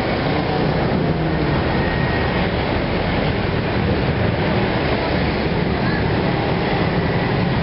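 Steady, unbroken rumble and rush of passing vehicles.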